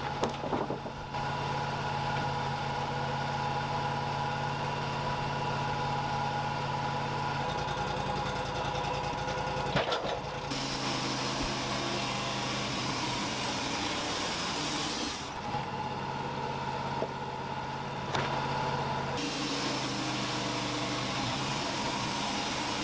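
Wood-Mizer LT35 portable band sawmill running steadily while sawing a Douglas fir log. A brighter hiss comes and goes a few times over the steady engine sound.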